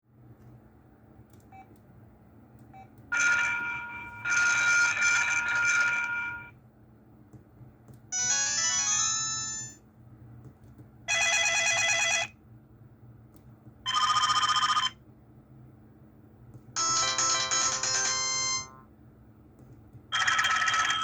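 Huawei ETS688 phone playing a series of short electronic alert tones one after another, about seven in all, each a jingle of a second or two with brief pauses between. One is a quick rising run of notes.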